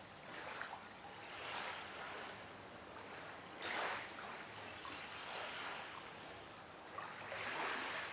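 Sea washing over a shingle beach: soft, irregular swells of hissing surf every second or two, the loudest about four seconds in.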